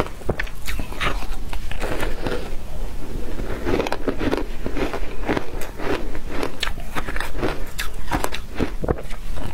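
Crunching bites into a chunk of frozen shaved ice dusted with matcha powder: a dense, irregular run of sharp cracks and crackles as the ice breaks between the teeth.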